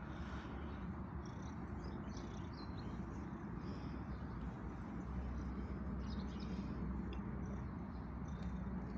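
Domestic cat purring steadily close up while being stroked, a low continuous rumble with a rapid fine pulse; faint short bird chirps now and then above it.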